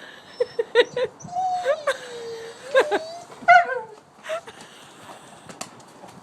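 A border collie whining and whimpering: a few short whimpers, then one long wavering whine, then a few more short whimpers.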